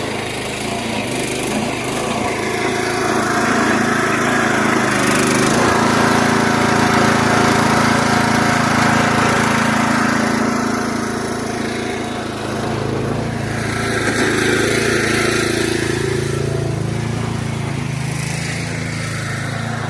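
Small gasoline engine of a towable backhoe running steadily while digging, its note swelling and easing as the hydraulics are loaded, dipping briefly about two thirds of the way through.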